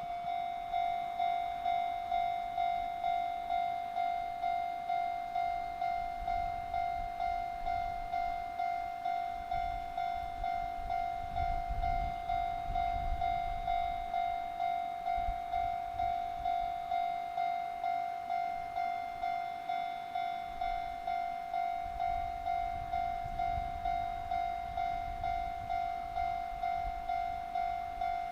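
Japanese railway level-crossing warning bell ringing in steady repeated strokes, about three every two seconds. A low rumble swells beneath it twice, in the middle and near the end.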